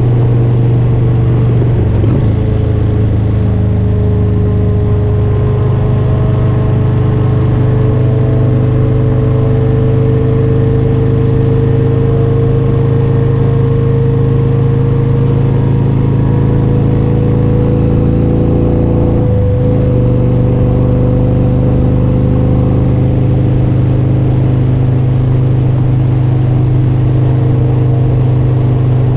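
Motorcycle engine running steadily at cruising speed under a wash of wind and road noise, its pitch creeping slowly upward, with brief changes in the engine note about two seconds in and again around twenty seconds.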